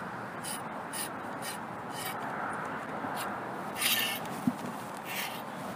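Rubbing and scraping as a cable and its protective tubing are handled and pulled by hand, with scattered light scratchy clicks, a longer scrape about four seconds in and a brief knock just after, over a steady background hiss.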